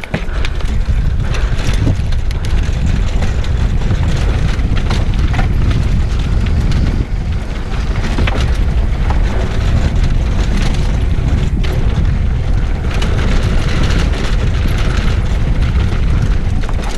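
A mountain bike rattling fast downhill over stone paving, tyres and frame clattering with many sharp knocks, under heavy wind rumble on the microphone.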